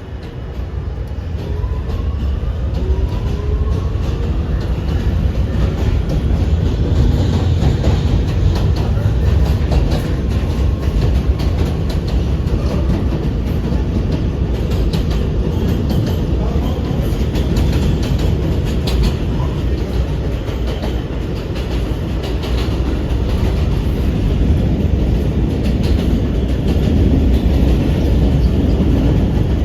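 Kawasaki R211A subway car heard from onboard, pulling away and running between stations. A faint whine climbs in pitch over the first few seconds as the train gathers speed, then settles into a loud, steady rumble of wheels on rail with scattered clicks over the track joints.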